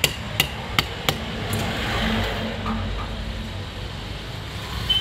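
Hammer tapping on an alternator's aluminium end housing: a quick run of sharp metallic taps about a third of a second apart in the first second and a half, followed by a low steady rumble.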